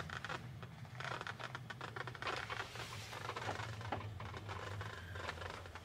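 Faint rustling and small scattered clicks of handling, over a low steady hum.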